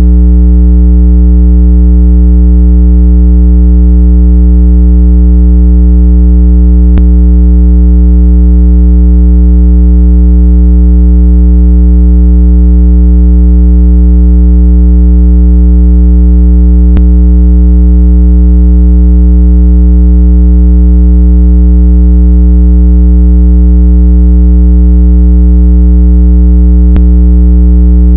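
Loud, steady synthesized low tone for pushing water out of a phone speaker, holding one pitch throughout with a buzzy edge of many overtones. A faint click comes about every ten seconds, three times.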